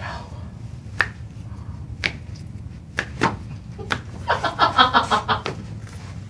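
Toe joints cracking during a chiropractic toe manipulation: about five sharp pops, roughly a second apart. A short voice sound comes in about four seconds in.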